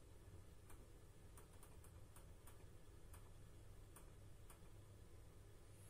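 Faint metronome ticks, about two a second at a tempo of 106 beats per minute, over a low steady hum.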